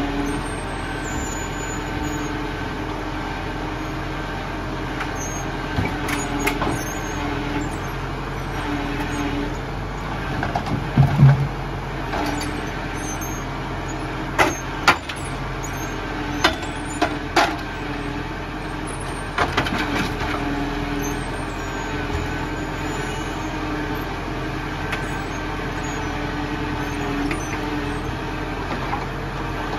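Zetor Forterra 140 HSX tractor's diesel engine running steadily while it powers a forestry trailer's hydraulic log crane. Several sharp wooden clunks come as the grapple drops and knocks logs: the loudest about eleven seconds in, then a cluster between about fourteen and twenty seconds.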